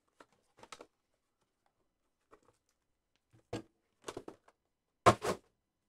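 Cardboard trading-card box being opened and its foam insert handled: a few short scuffs and taps, the loudest a little after five seconds in.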